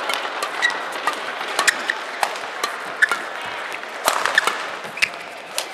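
Badminton rally sounds in an arena: irregular sharp taps of rackets striking the shuttlecock and short squeaks of court shoes, over a steady hall murmur.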